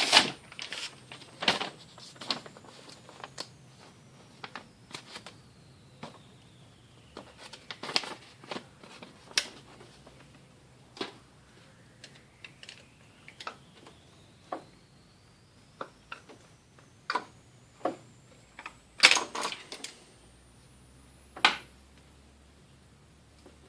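Irregular clicks and knocks of hand tools and engine parts being handled, with a faint thin high whine that slowly falls and then climbs again.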